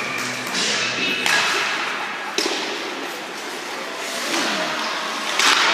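Ice hockey play: sticks and puck knocking and skates scraping on the ice, with sharp hits about a second in, past two seconds and near the end.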